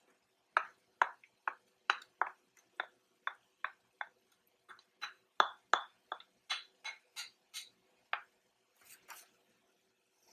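A spoon knocking and clinking against a cooking pan as frozen chopped spinach is mixed into minced chicken: a series of sharp, irregular taps at about two to three a second that stop about 8 seconds in.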